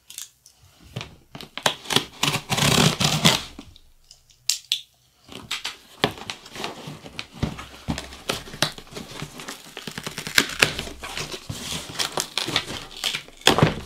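Hands opening a cardboard box and handling the packaging inside: rustling and crinkling with many scattered clicks and taps. The loudest rustling comes about three seconds in, followed by a short pause.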